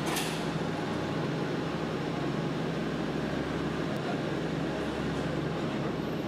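Steady mechanical din of a weaving shed with many looms running together, with a low hum underneath. It swells in at the start.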